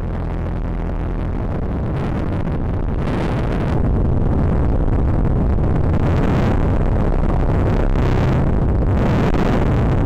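Propeller and wind rush from a small RC P-51D Mustang model plane in flight, picked up by a camera mounted on the plane: a loud, steady rush that gets a little louder about four seconds in.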